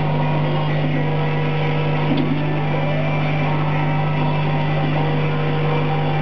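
CO2 laser cutter at work, a steady low hum under whining tones from the moving head's drive that hold for a second or so, then glide up or down as it changes speed.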